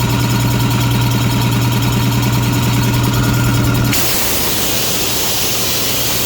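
Homemade air compressor running under load, its two-stage pumps driven by electric motors, with a steady hum and a fast, even pumping pulse. About four seconds in this gives way suddenly to a steady rushing hiss: the unclamped air hose has blown off its fitting and compressed air is escaping.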